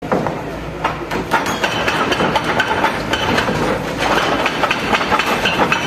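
A wheeled excavator demolishing a brick-and-concrete building: a dense, irregular run of cracks, knocks and clinks of breaking masonry and tumbling rubble over the low, steady run of the machine's engine.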